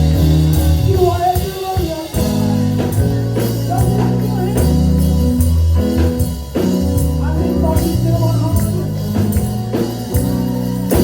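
Gospel praise-and-worship music: sustained keyboard and bass chords with tambourine striking on a steady beat and a voice singing over it.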